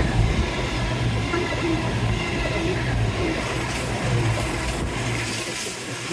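A train running past close by: a steady low engine hum under a broad wash of noise.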